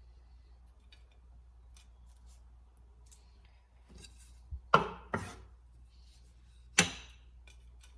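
Kitchen utensils knocking against cookware: a few faint clicks, then sharp clinks about five seconds in and again near seven seconds, with no steady sizzle.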